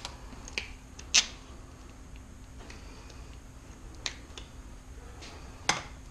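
Handling noise: a handful of sharp clicks and clacks, the loudest about a second in and another near the end, over a faint steady hum.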